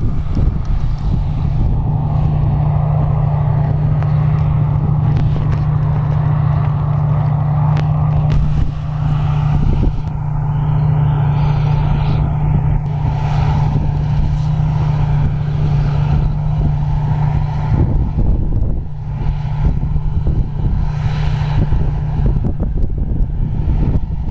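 Heavy farm machinery's diesel engine running steadily: a constant low hum with a rushing noise above it.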